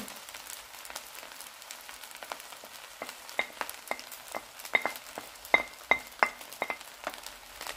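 Fried rice sizzling faintly in a hot pan while chopped fried egg is scraped off a ceramic plate into it. From about three seconds in come a series of sharp clinks of a utensil, each with a short ring.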